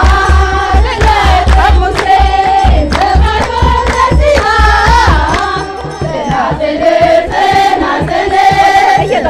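A group of women singing an Ethiopian Orthodox hymn together, with hand clapping and a deep beat under it that drops out a little past halfway.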